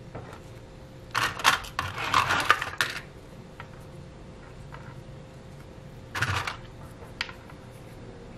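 Wooden spring clothespins clicking and clattering as they are squeezed open and snapped shut onto the edge of a glued leather earring, clamping the layers while the glue dries. A cluster of clicks comes about a second in, another about six seconds in, then one single sharp click.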